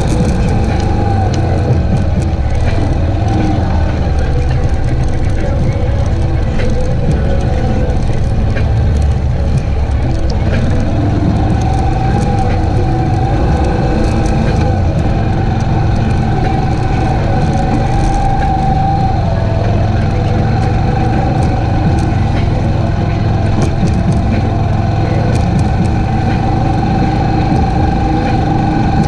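ATV engine running steadily while riding along a sandy dirt trail, a constant high whine over the engine note, with scattered small clicks.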